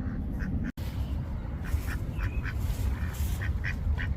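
Ducks quacking: a run of short, repeated quacks, thickest in the second half, over a steady low rumble. The sound drops out briefly just under a second in.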